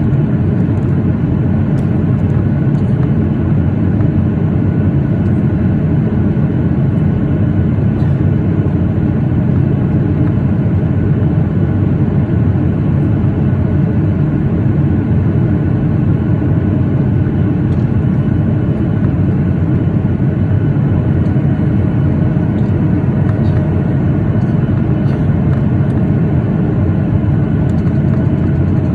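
Steady cabin noise inside a Boeing 737-8 in flight: a dense, even low rush of airflow and engine noise with faint steady tones in it from its CFM LEAP-1B engines.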